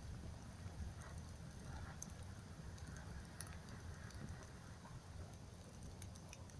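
Campfire crackling: scattered sharp pops and ticks over a low steady rumble.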